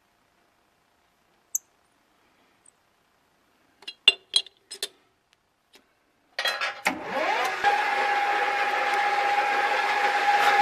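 A few sharp clicks and knocks, then about six seconds in a 40-year-old metal lathe is switched on: its motor spins up with a rising whine and settles into a steady running whine and hum.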